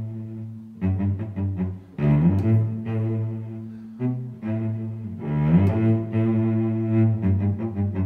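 Background music on low bowed strings: slow, long held notes, some sliding up into pitch, giving way to shorter separate notes near the end.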